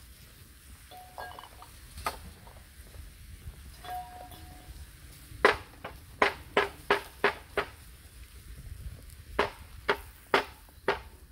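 Two short faint beeps, then sharp clicks in two runs: about six in quick succession past the middle and four more near the end.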